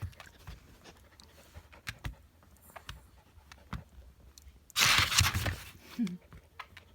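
A husky and a chihuahua moving about: scattered light clicks and rustles, with a short loud rustling burst about five seconds in and a brief low sound just after it.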